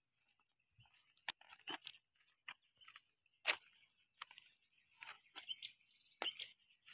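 Footsteps in sandals crunching over loose gravel and river stones: about ten uneven steps, the loudest about three and a half seconds in.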